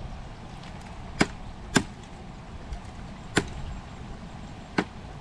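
Dry sticks of thorny brushwood being snapped by hand into short pieces for firewood: four sharp cracks at uneven intervals.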